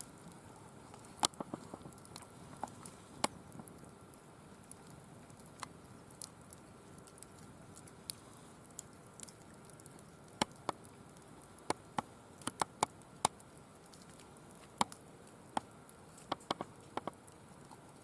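Firewood burning in a wire-mesh fire pit, crackling with irregular sharp pops over a low steady hiss. The pops come thickest about two-thirds of the way through.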